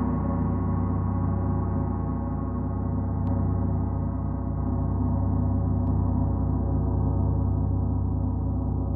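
A gong ringing on after a strike: a dense cluster of sustained metallic tones with a regular, slow wavering in the low notes, the highest overtones slowly dying away.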